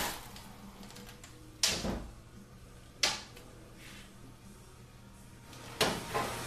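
Three sharp clicks and knocks, a second or more apart, of hand tools and metal parts being handled while the oil pan bolts are taken out of a 6L80-E automatic transmission.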